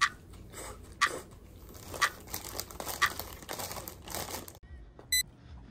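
Clear plastic salad bag crinkling as salad is picked out of it with chopsticks, with a sharp crackle about once a second. Near the end this gives way to a short electronic beep.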